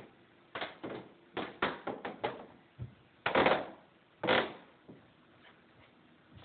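Floor squeaking and creaking as it is walked on: a quick run of short creaks, then two longer, louder creaks about three and four seconds in.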